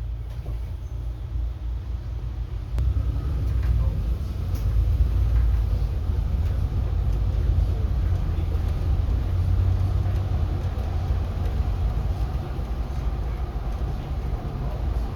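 Bus running, heard from inside: a steady low rumble of engine and road noise that grows louder about three seconds in.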